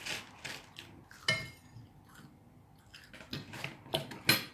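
Cutlery clicking and scraping against dinner plates, with a few separate knocks and one brief ringing clink a little over a second in.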